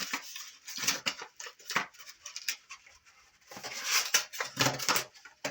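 Irregular clicks, knocks and rustling of a cordless reciprocating saw's plastic housing being handled, with a denser cluster of knocks about four to five seconds in.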